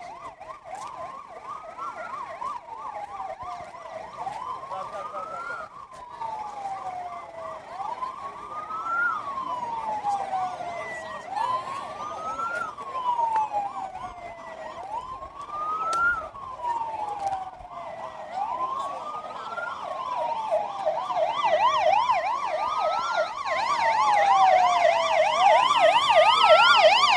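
Emergency vehicle sirens. One wails, rising quickly and falling slowly about every three and a half seconds. A second siren in a fast yelp joins and grows louder toward the end.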